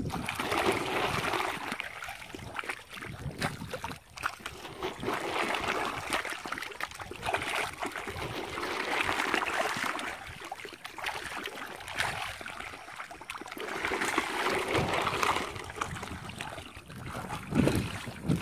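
Catfish splashing and thrashing at the water's surface as they feed on floating pellets: a run of small splashes that swells and fades every few seconds.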